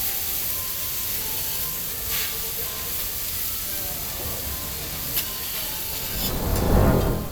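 Steady sizzling hiss of okonomiyaki frying on a hot iron griddle, with a couple of light clicks. A low rumble swells in the last second.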